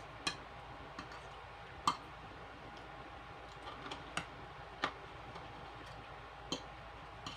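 Close-miked eating of okra: a handful of sharp, irregularly spaced mouth clicks and smacks as she chews, over a faint steady background.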